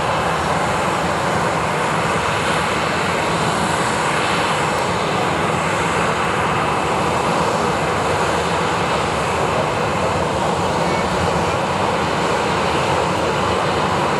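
Boeing 737-800's twin CFM56-7B turbofans running steadily at low thrust as the airliner taxis, an even jet roar with no change in pitch or level.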